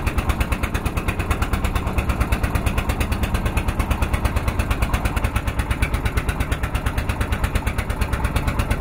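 Boat engine running steadily, a fast, even thumping of several beats a second.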